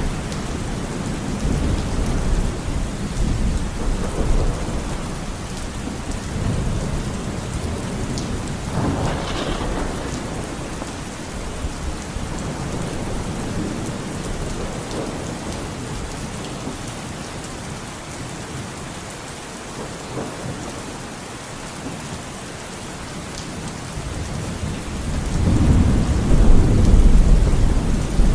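Steady rain falling with rolling thunder: a rumble about a third of the way in, and a louder, longer rumble building near the end.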